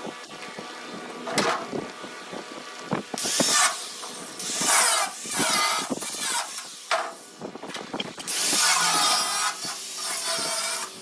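Arc welding: the crackling hiss of the welding arc in several short runs, the last and longest near the end, with scattered sharp knocks in between.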